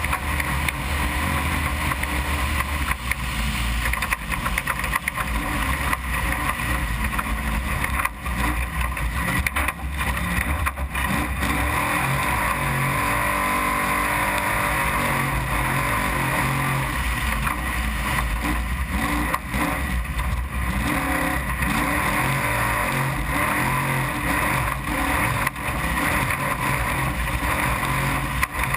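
Desert trophy truck running hard at speed, its engine revs stepping up and down under a steady rush of noise, with frequent small knocks and rattles.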